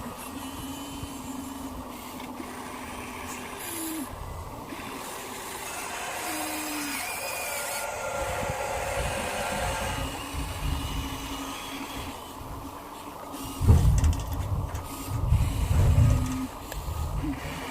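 Small electric motors of radio-controlled construction models running, a steady whine with a few short pitch glides. About three-quarters of the way in come several heavy low rumbles and knocks.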